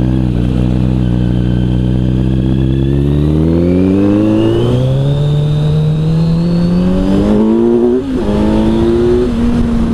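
Kawasaki Z900's inline-four engine through an Arrow exhaust, pulling under acceleration. The note holds steady for a few seconds, then rises as the revs climb. About eight seconds in the pitch drops sharply at a gear change, then holds roughly level.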